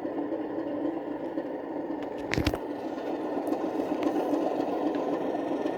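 Model Class 37 diesel locomotive's DCC sound decoder playing a steady engine idle through the model's small speaker. A short knock comes about two and a half seconds in.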